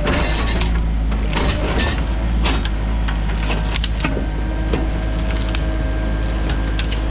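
Sany mini excavator's engine running steadily, with a faint steady whine over it and repeated sharp cracks, snaps and knocks of wood splintering as trees are broken and pushed over.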